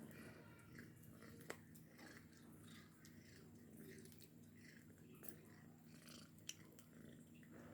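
A cat chewing fish, faint, with scattered small clicks and two sharper clicks.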